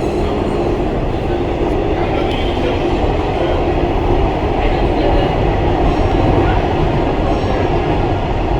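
Metro train running, heard from inside the car: a steady rumble with an even hum.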